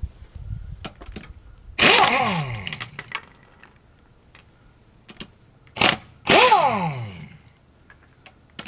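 Air impact wrench spinning off lug nuts that were already loosened: three bursts, a short one between two longer ones, each ending in a falling whine as the motor winds down.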